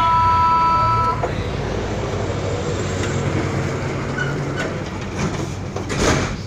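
Tram interior: a steady two-note electronic warning tone sounds for about the first second, then stops. The tram's running rumble continues under it, and a brief clatter comes near the end.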